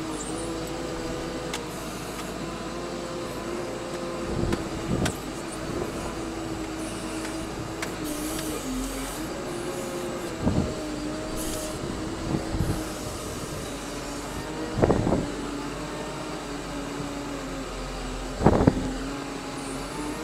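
Compact wheel loader's engine running, heard from inside the cab, its pitch drifting up and down a little as the machine drives and works. Several heavy knocks and clunks break in, the loudest near the end.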